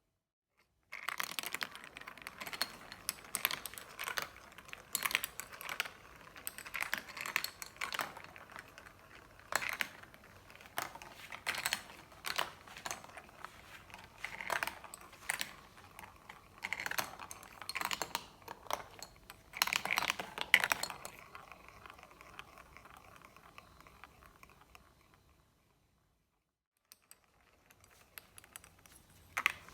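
Marbles rolling and clattering down a marble run track, a quick irregular stream of clicks and knocks starting about a second in. It fades out, goes quiet for a moment, then starts again near the end.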